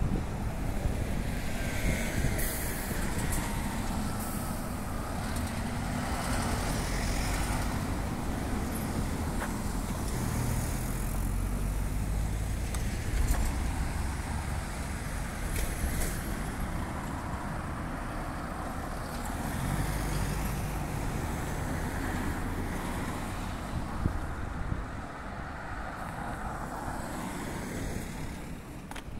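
Road traffic: cars and a van driving past close by, the engine and tyre noise swelling and fading as each one passes.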